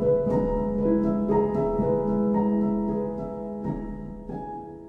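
Slow, soft instrumental piano music, single notes struck one after another and left to ring over each other, fading out toward the end.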